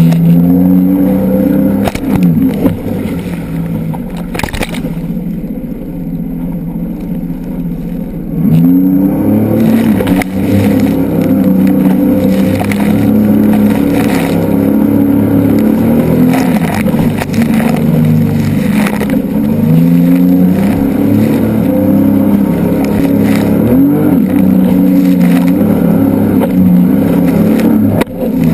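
Jet ski engine running at speed over choppy water, its pitch rising several times as the throttle opens, with spray and waves splashing against the hull. It runs quieter for a few seconds near the start, then louder again about eight seconds in.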